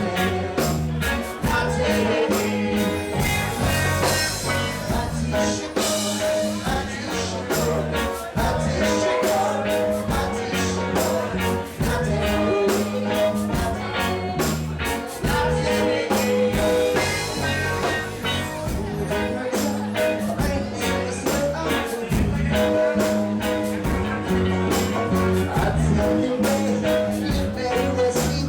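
Live reggae band playing a song with a steady, evenly repeating beat over a bass line.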